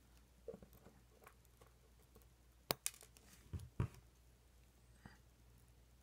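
Small clicks and light taps of tiny lock pins and parts being handled and set into a lock cylinder. There is one sharp click near the middle and two soft knocks just after it.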